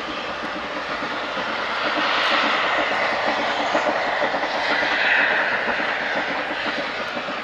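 Oil-fired steam locomotive X-37397 hauling a train on the Nilgiri Mountain Railway, heard from a distance: a steady rushing noise that swells twice.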